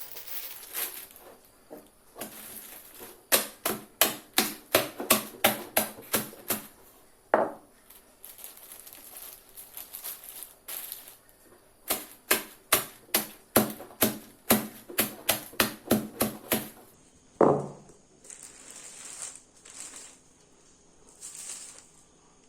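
Rock sugar crystals wrapped in a plastic sheet being pounded to crush them: two runs of sharp blows, about three a second, with plastic crinkling as the sheet is handled before, between and after them.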